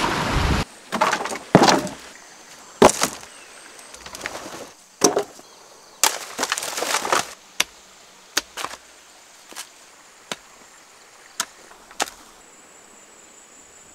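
Rushing stream water for a moment, then a run of cracks, crunches and knocks as dry bamboo and wood are pulled apart and broken, ending in single sharp strikes of a hoe into stony soil.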